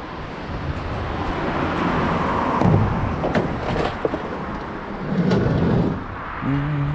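A van driving along, its engine and road noise running steadily and swelling twice.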